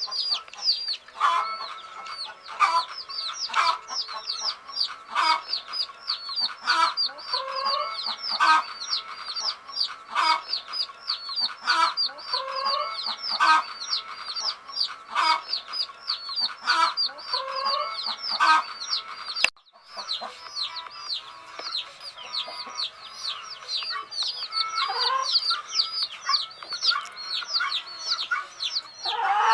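Baby chicks peeping continuously: a dense stream of short, high, falling peeps, with louder, lower calls about every second and a half. The sound cuts out for a moment about two-thirds of the way through.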